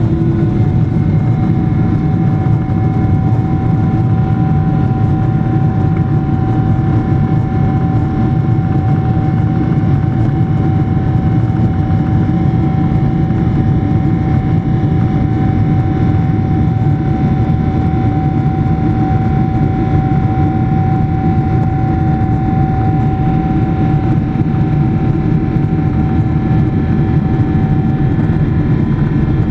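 Jet engines of a Boeing 777-300ER (GE90-115B) heard from inside the cabin: a steady low rumble under a whine that climbs slightly at the start and then holds one pitch.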